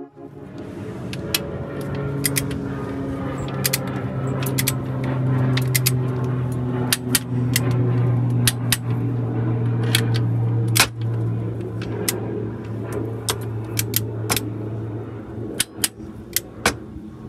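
Hand tools clinking and clicking on the cylinder head of a Detroit Diesel Series 60: a ratchet and socket working bolts among the rocker assemblies, with many sharp metallic ticks. Under it runs a steady low hum that fades out a couple of seconds before the end.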